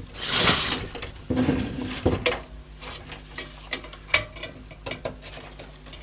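A PC power cable being pulled through the case and handled: a swish of cable sliding, a stretch of scraping, then scattered small plastic clicks and taps.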